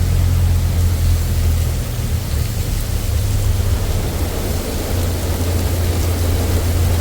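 Songthaew pickup truck running, heard from the back: a steady low engine drone under a constant loud hiss of rain and road noise.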